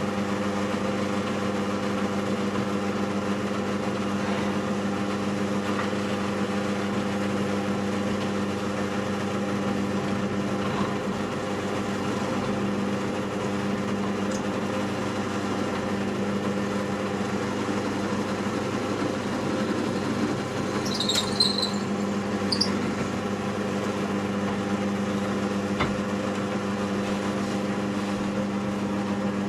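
Drill press motor running steadily while a pin hole is drilled through the knife's scales and tang, with a few brief high squeaks about two-thirds of the way through.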